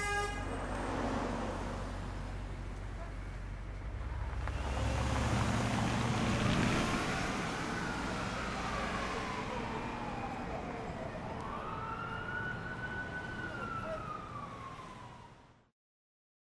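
City street traffic noise with a car driving by, then an emergency siren wailing in slow rising-and-falling sweeps; the sound fades out shortly before the end.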